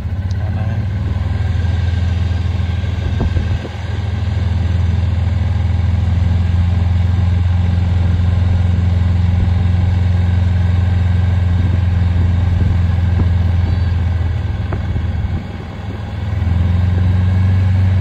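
Golf cart engine running steadily while driving, a loud low hum that dips briefly twice.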